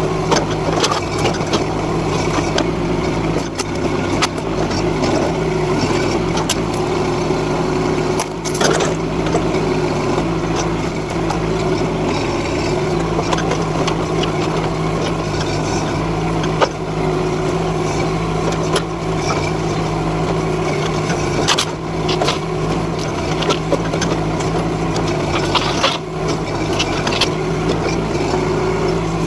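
NT18K mini excavator's engine running steadily as it works its boom and bucket, with scattered sharp cracks and knocks of wood and sheet metal being pulled apart.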